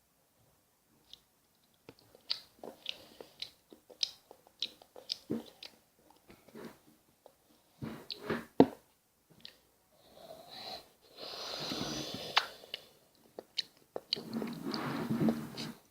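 Close-up chewing and biting of cheesecake: wet, clicky mouth sounds in quick succession, then two longer noisy stretches of a second or two each in the second half.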